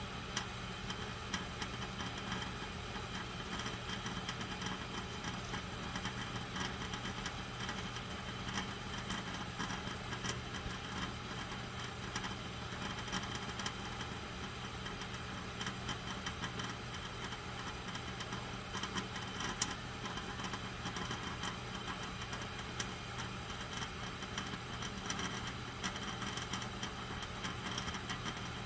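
Small electric motor of a lens-polishing wheel running steadily, a low even hum with faint scattered ticks.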